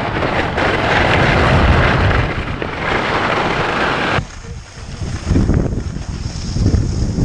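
Wind buffeting a Purple Panda lavalier microphone with its foam wind muffler, on a skier going fast into the wind: a dense, continuous rush. About four seconds in it cuts abruptly to wind noise through a GoPro's built-in microphone, briefly quieter and duller before building again.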